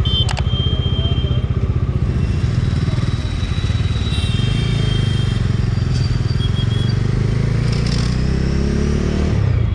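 Bajaj Dominar 250's single-cylinder engine running under way through city traffic, with wind and road noise. Near the end the engine note rises as the bike speeds up.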